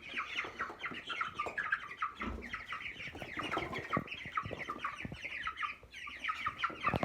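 A flock of young broiler chickens peeping continuously, many short, quick calls overlapping, with a few dull knocks.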